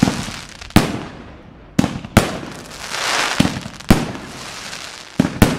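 A 259-shot Enigma 'Tears of Heaven' fireworks cake firing, about seven sharp bangs of shots breaking in the air, with crackling between them.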